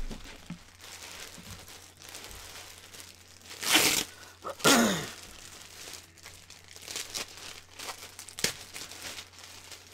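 Packaging crinkling and rustling as a hockey jersey is handled and pulled from a shipping box, with two louder rustles about four and five seconds in.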